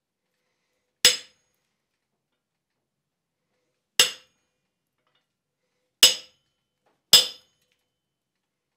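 Hand hammer striking a slitting chisel held on a hot iron bar on the anvil: four separate blows, spaced one to three seconds apart, each with a short metallic ring. The chisel is starting a slit through the bar for a square drift.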